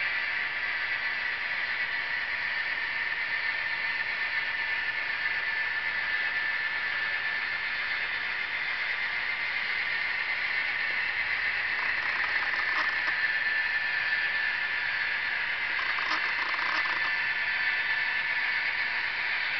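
Model freight train running: a steady high whir and hiss from the model locomotives' motors and gearing, with faint brief rattles about twelve and sixteen seconds in.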